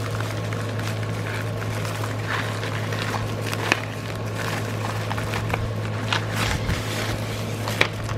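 Light rustling and scattered small clicks as a bubble mailer is handled and opened, over a steady low electrical-sounding hum.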